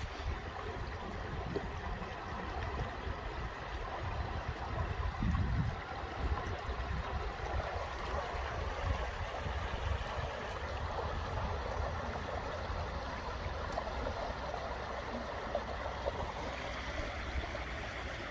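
Steady running water, like a small stream or trickle, with a low, uneven wind rumble on the microphone.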